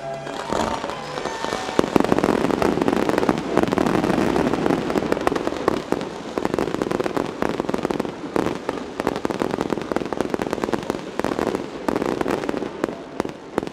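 Mascletà by Pirotecnia Hermanos Sirvent: strings of ground firecrackers (masclets) and aerial shells going off in a rapid, dense barrage of bangs. The barrage builds within the first two seconds and thins into more separate bangs near the end.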